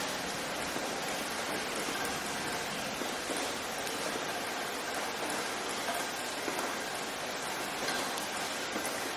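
Steady rain falling, an even hiss with no single drops or breaks standing out.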